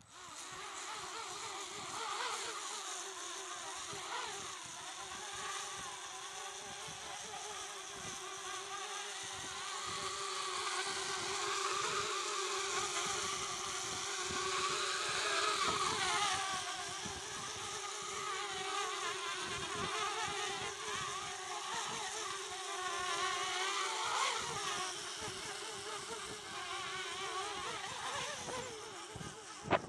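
Eachine Falcon 180 mini quadcopter's motors and propellers buzzing in flight. The pitch wavers up and down continually as the throttle changes while the quad is buffeted and corrected.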